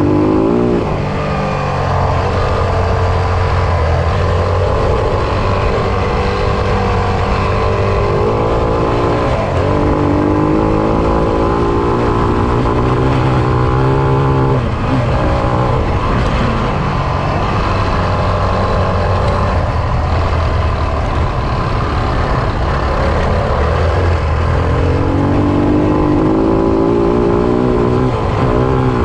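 Enduro motorcycle engine running hard, heard from on the bike itself. Its pitch climbs and drops again several times as the rider accelerates and shifts gears.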